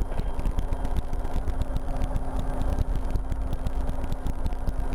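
RotorWay kit helicopter's engine and rotor running steadily in flight: a constant low drone with a held hum and fast, even pulsing.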